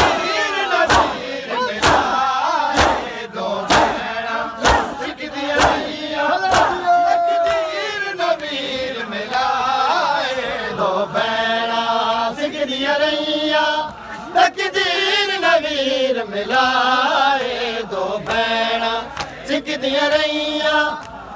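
Crowd of men performing matam: unison chest-beating slaps at about one a second, with shouting, for the first seven seconds or so. Then the crowd chants a mourning refrain together in a steady rhythm.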